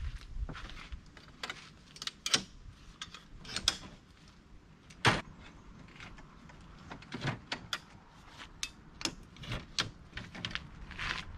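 Irregular clicks and knocks of objects being handled, the sharpest about five seconds in.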